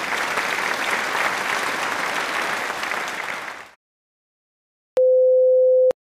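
Applause that fades out about three and a half seconds in. About five seconds in comes a single steady beep, about a second long.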